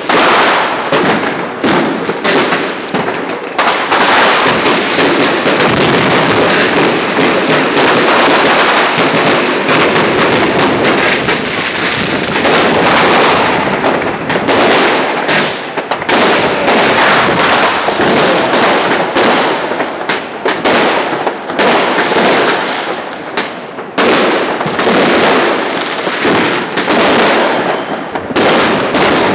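Many fireworks and firecrackers going off all over a city at once: a loud, unbroken crackle of overlapping bangs and pops with hardly a gap.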